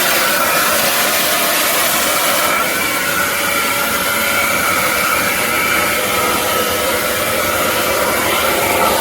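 Aspiron 1600 W bagless canister vacuum cleaner running at full power: a loud, steady rush of air with a high whine that shifts slightly in pitch a couple of times.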